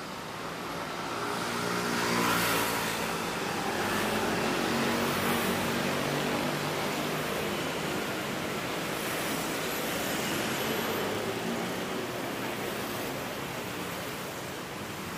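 Road traffic on a busy multi-lane city street: vehicle engines running and passing, with tyre noise, loudest about two seconds in.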